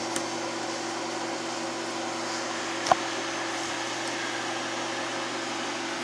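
Microwave oven running with aluminium foil inside: a steady hum and fan noise with one steady mid-pitched tone, and no arcing or crackling from the foil. A single sharp click about three seconds in.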